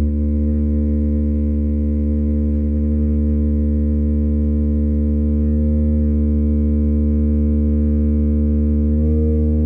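A sustained musical drone: one low held pitch, rich in overtones, that does not break, with its upper tones swelling slightly near the end.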